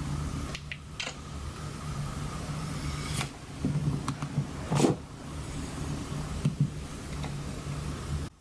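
Steady low mechanical hum in a room, with several short knocks and thumps of someone moving about. The loudest knock comes about five seconds in, and the hum cuts off abruptly just before the end.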